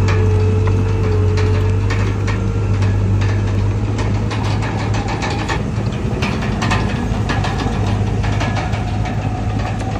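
Heavy diesel earthmoving engine, most likely the Komatsu D31PX bulldozer's, running steadily with a deep hum, mixed with scattered metallic clanks and knocks.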